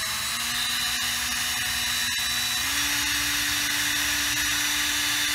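Craftsman cordless drill motor running steadily in reverse, spinning its bit to wind fishing line off a baitcaster reel's spool. Its pitch steps up a little about two and a half seconds in.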